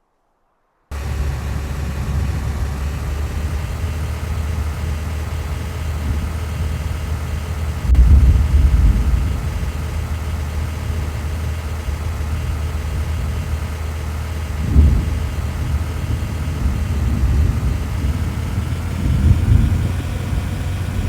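Steady low rumble of a vehicle's engine and road noise, with heavier low surges about eight, fifteen and nineteen seconds in.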